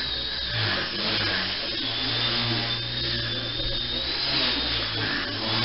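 Walkera Super CP micro RC helicopter in flight: a high-pitched electric motor whine that wavers slightly in pitch over the whir of the rotor.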